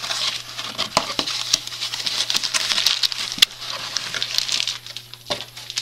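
Packing material and plastic bags rustling and crinkling as a cardboard mailing box is unpacked by hand, with scattered sharp clicks and taps.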